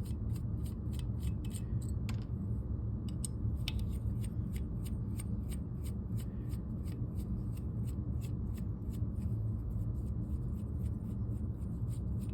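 Small Allen key turning out the long screws that hold a paintball marker's screen cover and OLED board: light metallic clicks and rubbing of the key in the screw heads.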